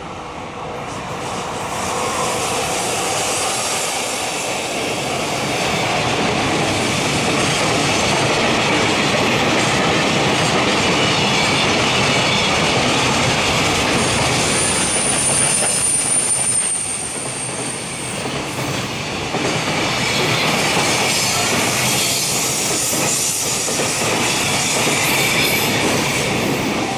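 A freight train hauled by a JR Freight EF66 electric locomotive, with a long string of container wagons, passes close by: steady rumble and clatter of steel wheels on the rails, building over the first two seconds. A high thin squeal rises over the noise for a few seconds about halfway through.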